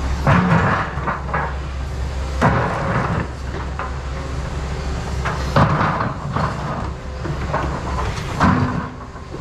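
Cat 335 Next Gen excavator's diesel engine running steadily, with four loud clunks and scrapes a couple of seconds apart as the steel bucket works rock.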